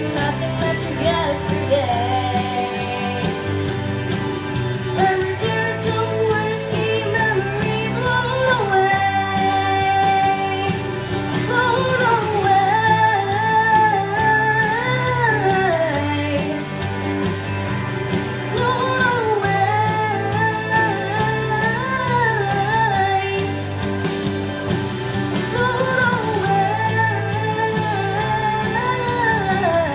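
A girl's solo singing voice holding long, wavering notes with runs between them, over instrumental accompaniment with a steady bass.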